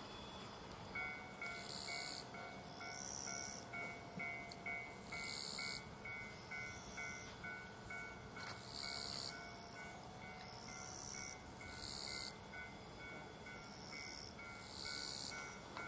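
A Japanese railway level-crossing bell starts ringing about a second in, a steady run of two-pitched electronic dings at about three a second, the sign that a train is approaching. Over it, short high buzzing calls come every few seconds.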